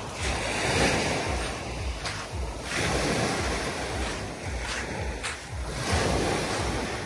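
Small sea waves breaking and washing up a fine pebble beach, swelling in three surges about every three seconds, with wind rumbling on the microphone.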